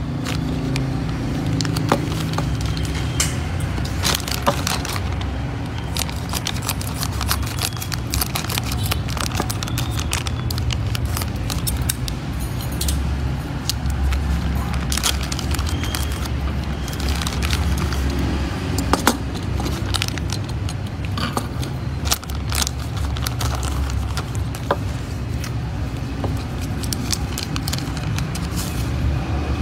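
Thin plastic toy packaging bags crinkling and rustling as they are handled and opened, with many quick sharp crackles throughout, over a steady low rumble.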